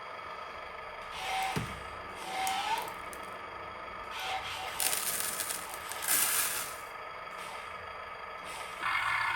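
Radio-controlled construction machines working gravel: irregular bursts of scraping and rattling, with short rising whines from their small electric motors.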